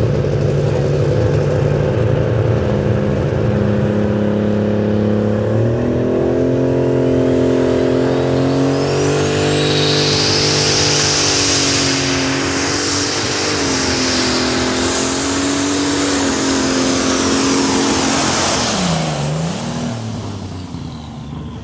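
Super Stock pulling tractor's turbocharged, methanol-fuelled engine under full load through a pull. The engine revs step up about five seconds in, and a high turbo whine climbs steeply and holds as a shrill steady scream. About eighteen seconds in the throttle comes off, and the whine and engine note drop away quickly.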